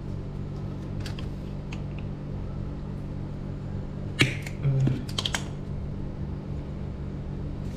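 A few light plastic clicks and crackles as a squeeze bottle of gear oil is pressed and emptied into a scooter's final-drive filler hole, over a steady low hum.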